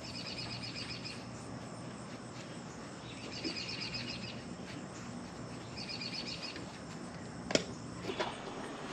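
Outdoor ambience with a low steady hum. A high, rapid chirping trill sounds three times, each about a second long, spaced roughly two and a half seconds apart. A sharp click comes near the end.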